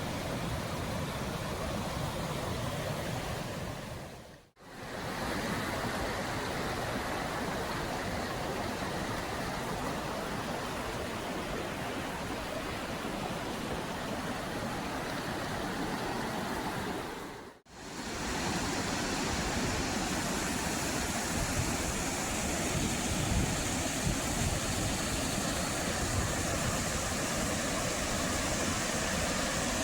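Steady rushing of a waterfall, broken by two brief cuts about four and a half seconds and seventeen and a half seconds in; the last stretch is a little brighter and hissier.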